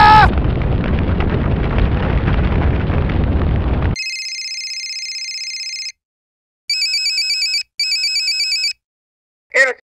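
Sound-effect soundtrack: a dense, steady fire noise from the burning jet engine that cuts off abruptly about four seconds in. A steady electronic tone follows. Then comes a telephone-style ring in two bursts of about a second each, and a brief sliding tone near the end.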